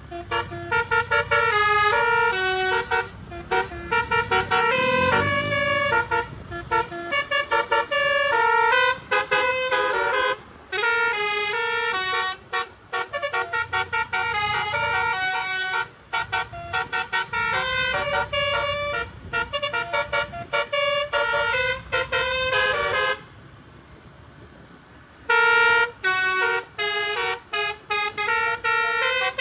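Tour bus telolet horn, a set of multi-tone air horns playing quick melodic runs of short stepped notes over a low rumble. The horn stops for about two seconds near the end, then starts again.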